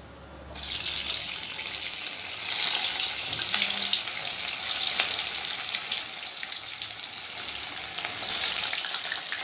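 Shredded potato balls dropped into hot oil in a kadai, sizzling and crackling as they deep-fry. The sizzle starts suddenly about half a second in, when the first pieces hit the oil.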